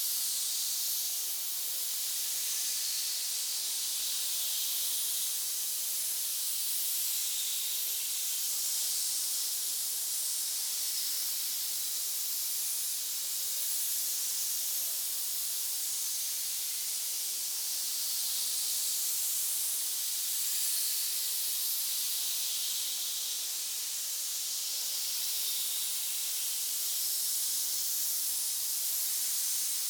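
Snake hissing: a steady, unbroken high hiss with gentle swells in loudness.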